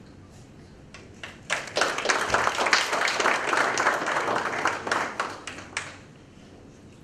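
Audience applauding: many hands clapping, starting about a second and a half in and dying away near the end.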